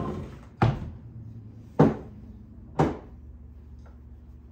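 Three sharp knocks about a second apart as objects are set down or moved on a hard surface, followed by a faint click.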